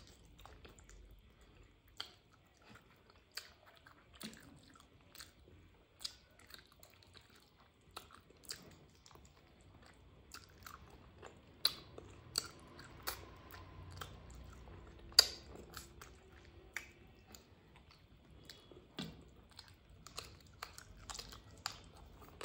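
A person eating rice and curry by hand: chewing and mouth smacks, with scattered sharp clicks and smacks, the loudest about fifteen seconds in.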